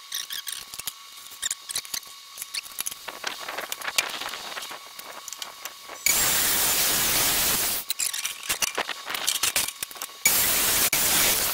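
Light scratching and clicks as a cutting line is marked on a wooden shelf board, then a handheld circular saw cutting through the board in two loud, noisy runs. The first run starts about six seconds in and lasts about two seconds; the second starts near the end.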